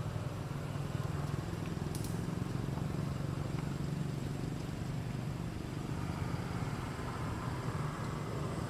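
A steady low rumble, like a vehicle engine or road traffic running in the background, with a single short click about two seconds in.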